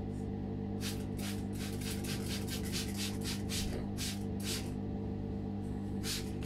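Plastic trigger spray bottle squeezed rapidly over and over, giving short hissing squirts of water mist about four or five a second, pausing briefly before a few more squirts near the end. A steady low hum runs underneath.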